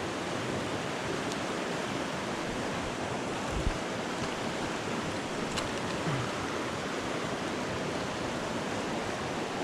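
Small mountain creek's water rushing steadily, an even hiss of flowing water, with one brief low thump about three and a half seconds in.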